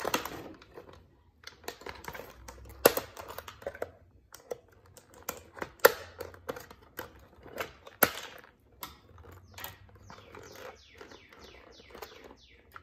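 Plastic toy trains and their cardboard packaging being handled: a quick run of small clicks, taps and scrapes as the engines are worked out of the box insert, with sharp knocks about 3, 6 and 8 seconds in.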